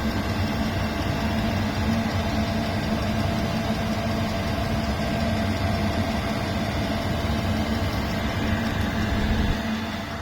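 Diesel air heater, modified to run mounted vertically, running with a steady hum from its burner and blower fan. The owner judges the combustion even in this position. The sound drops away near the end.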